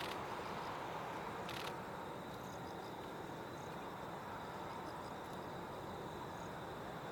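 Distant, steady drone of an approaching NAMC YS-11's two Rolls-Royce Dart turboprop engines on final approach, with a single camera shutter click about a second and a half in.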